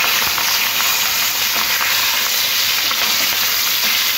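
Fish steaks shallow-frying in hot oil in an aluminium kadai: a steady, loud sizzle.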